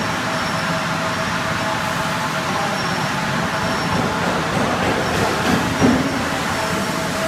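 Steady hum and hiss of water-treatment plant machinery running, with a faint steady tone over it.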